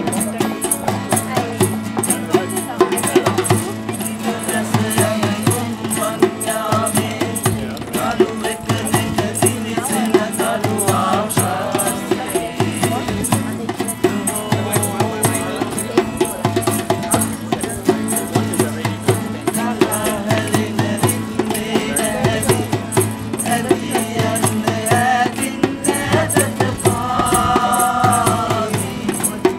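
Small live calypso band playing: two acoustic guitars strumming over bongos and a shaker keeping a steady rhythm, with a man singing into a microphone, holding a long note near the end.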